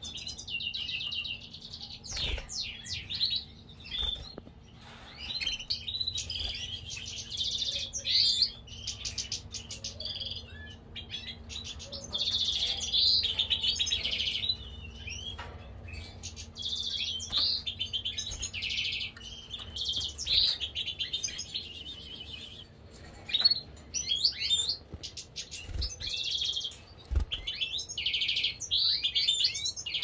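Caged finches chirping and singing in repeated high, quick trilled phrases, with a few soft knocks now and then.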